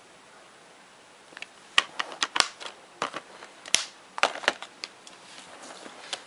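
Plastic DVD cases being handled: an irregular run of sharp clicks and clacks as a case is shut and the next one is taken from the stack. It starts about a second in, and two of the clicks are sharper than the rest.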